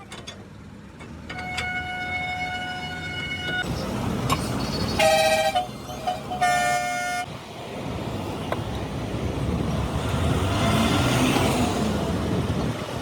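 Vehicle horns sounding amid road traffic: one held horn note of about two seconds, then two short, louder honks a second apart, with the noise of passing traffic building after them.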